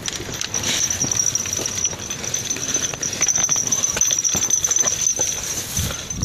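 Footsteps crunching and brushing through dry scrub and undergrowth, with many irregular crackles and snaps, over a steady high-pitched whine.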